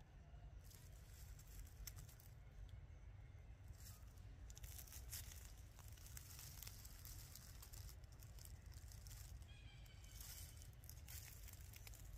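Faint rustling and crackling of dry leaves in repeated stretches over a low wind rumble, with a faint high chirp about ten seconds in.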